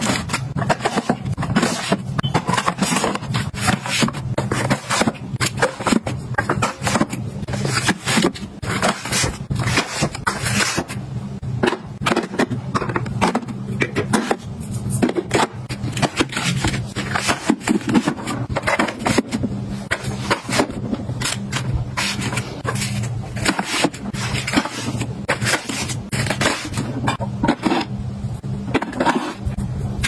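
Metal cat-food tins being set down on shelves and slid into rows against one another: many quick clinks and knocks with scraping between them, over a steady low hum.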